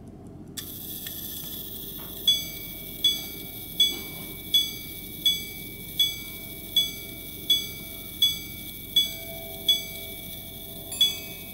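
Antique grand sonnerie pocket watch striking: the striking train starts to whir about half a second in, then a hammer strikes eleven evenly spaced ringing blows on a wire gong for the hours, and near the end the quarters begin as two-note double strikes on two gongs of different pitch.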